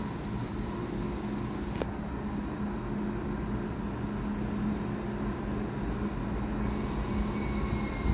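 Deutsche Bahn ICE high-speed train rolling slowly into the station, a steady electric hum with a single click about two seconds in and faint high whines in the later part.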